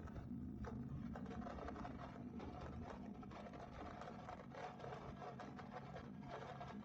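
Small motorcycle engine running steadily, heard faintly, with a rhythmic mechanical chatter.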